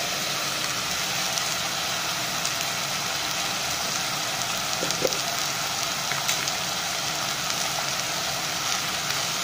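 Chicken pieces frying in coconut oil in a clay pot: a steady sizzling hiss with a few faint pops.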